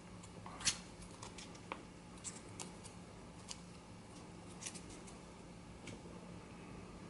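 Faint scattered crinkles and light ticks of wet-dry sandpaper being handled against a foam sanding stick and then set down on the bench, over a faint steady low hum.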